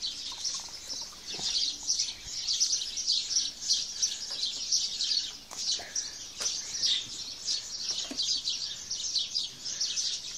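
Many small birds chirping in a dense, unbroken chorus of rapid high chirps.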